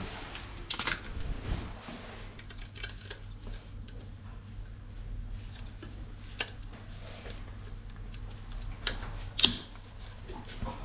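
Plastic clicks and scraping of a wall power socket being fitted by hand into its frame, with one sharper snap near the end, over a steady low hum.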